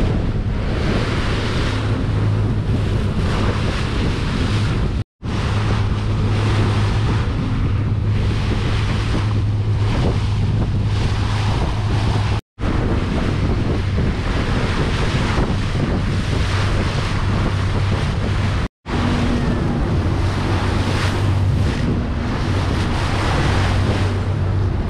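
Small tour boat under way: its engine runs with a steady low hum beneath the rush of wind on the microphone and water along the hull. The sound drops out briefly three times, at the cuts between clips.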